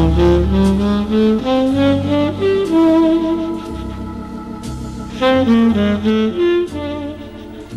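Instrumental background music: a melody moving in quick runs of notes, climbing in the first second or so and stepping down again later, over a low bass line.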